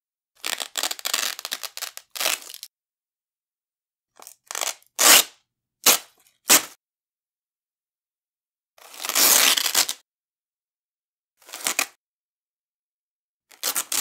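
Narrow Velcro hook-and-loop straps being ripped off a wide Velcro strap: about eight separate rips, mostly short, with one longer pull of about a second near the middle and silent pauses between them.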